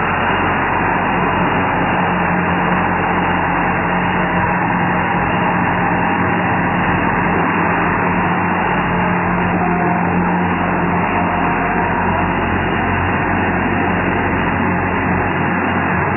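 Massey Ferguson 235 tractor engine running at a steady speed as the tractor drives past.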